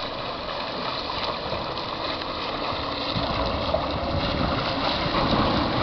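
Steady rush and splash of river water close to the microphone as a swimmer strokes through it, with a faint steady motor hum underneath.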